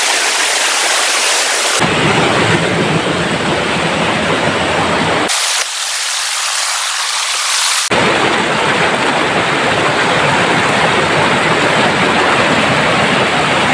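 Steady rush of a waterfall and the river below, a loud, even roar of water. Its tone changes abruptly a few times, about two, five and eight seconds in.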